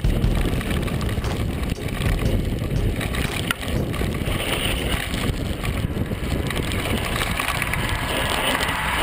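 Mountain bike riding fast over a dusty dirt trail: wind rushing on the bike-mounted camera's microphone, the knobby tyres rolling over dirt and stones, and the bike rattling over bumps.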